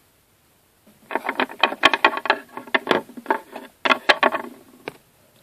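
Rapid, irregular clicking and tapping of small plastic toy figurines being handled and moved across a shelf. It starts about a second in and runs for about four seconds.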